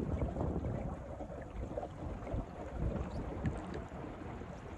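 Wind buffeting the microphone, with the low, steady noise of a small boat on the water.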